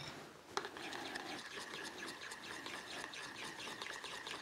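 Metal spoon stirring soy sauce into mayonnaise in a bowl: a rapid, even run of scraping and light clinks against the bowl, starting about half a second in.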